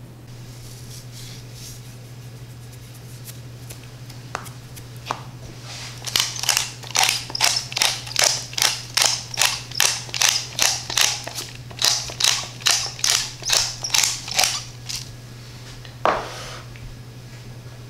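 Pepper mill being twisted to grind pepper: a quick, even run of gritty grinding strokes, about two or three a second, lasting some nine seconds, with a few light clicks before it and a single knock near the end, over a steady low hum.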